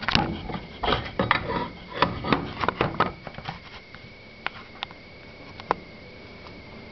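Rummaging and handling noise: a quick run of knocks, clicks and rubs for the first three seconds, then three sharp isolated clicks, over a faint steady high whine.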